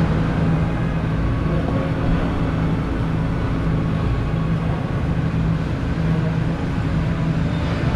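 A steady low mechanical hum over a constant rushing noise, without change.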